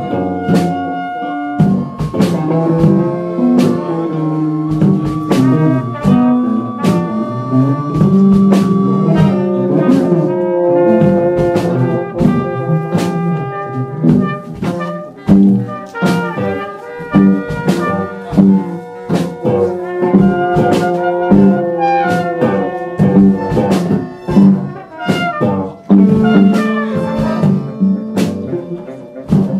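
A live band playing an instrumental passage: trumpets and a low brass horn carry the held notes over electric guitar and a drum kit hitting steadily throughout.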